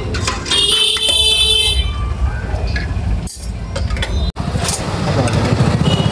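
Street traffic running by, with a vehicle horn sounding for about a second and a half starting about half a second in, over engine rumble and background voices.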